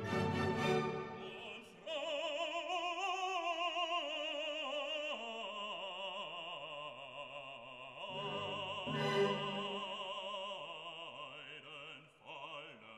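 Background music: classical operatic singing, long held notes sung with a wide vibrato over instrumental accompaniment.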